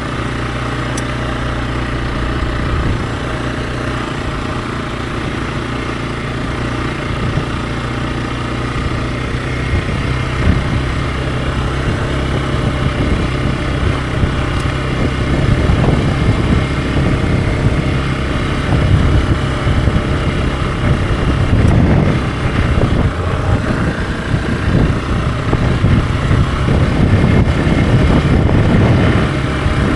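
Hero XPulse 200 4V's single-cylinder engine running while being ridden. It is steady and lower for the first several seconds, then louder and rougher with swells and dips as the throttle changes.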